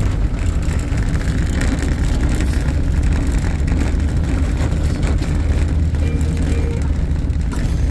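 Steady low rumble of a park road train running along the road: the towing vehicle's engine and the trailer cars' wheels, heard from inside one of the trailer cars.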